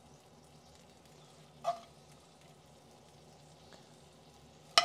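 A metal spoon filling grilled portobello mushrooms with lentil mixture in a cast-iron grill pan: two short clinks of the spoon, one about two seconds in and a sharper one near the end, over a faint steady hiss.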